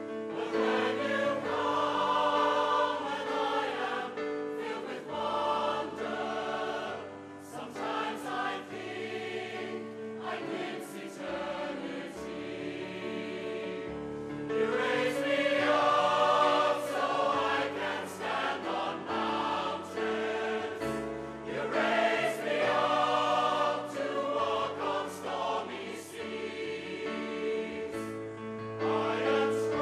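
A choir singing a slow piece over sustained accompaniment chords, the bass note changing every second or two.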